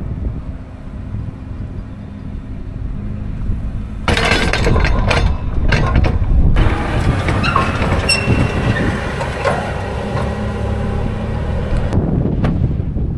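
John Deere 2510H anhydrous ammonia applicator towing its nurse tank across a field: a steady low rumble, then about four seconds in a sudden louder rushing noise with quick rattles and clanks from the hitch and running gear, easing back near the end.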